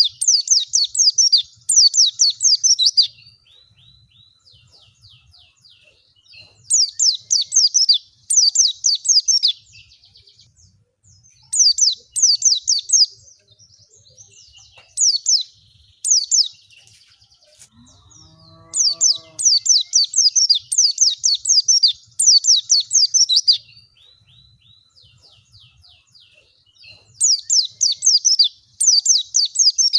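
White-eye (pleci) song: bouts of fast, high twittering trills one to four seconds long, repeated with short pauses. One lower, deeper call sounds once about two-thirds of the way through.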